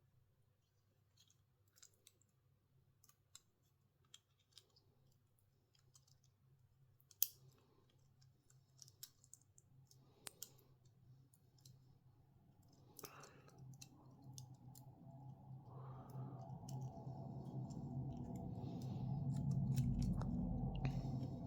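Scattered small sharp clicks and taps of a smartphone's parts and tools being handled as a new motherboard is fitted into the phone's frame. In the second half a steady low hum with a higher tone above it comes in and grows louder.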